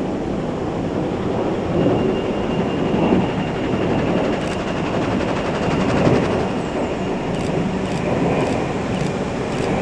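Train noise on the line: a steady rumble that swells now and then, with a faint high whine above it.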